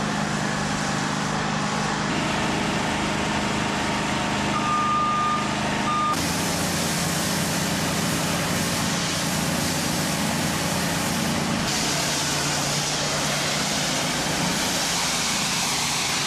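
Hot-water pressure washer's motor running steadily, joined about six seconds in by the loud hiss of the high-pressure spray, which grows brighter about halfway through. A high beep sounds twice around five to six seconds in.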